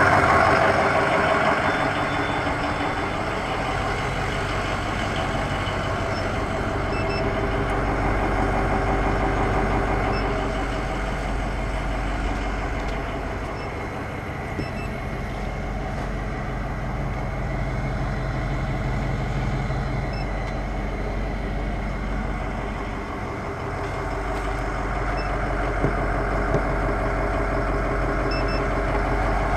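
The International VT365 V8 turbo-diesel of an IC CE200 school bus idling steadily.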